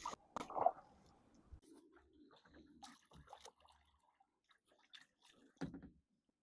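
Faint water splashing and dripping, with scattered light knocks and a soft thump about five and a half seconds in.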